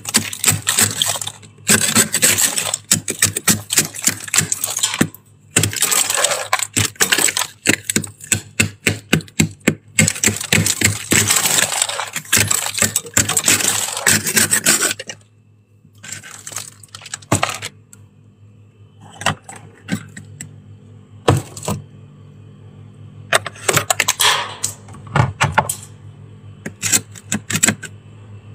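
Plastic scraper scraping thick frost off a freezer's inner wall: rapid crisp scratching strokes, packed closely for about fifteen seconds with two short pauses, then in a few short, sparser bursts.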